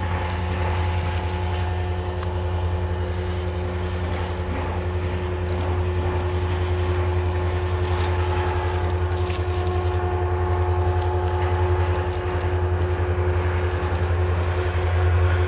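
Freight train of autorack cars rolling past: a steady low rumble of the wheels with a faint steady whine above it and short, high squeals and clicks here and there.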